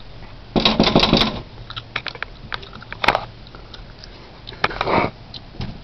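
Sharp knocks and rattles at a front door: a quick run of raps about half a second in, then single knocks about three and five seconds in.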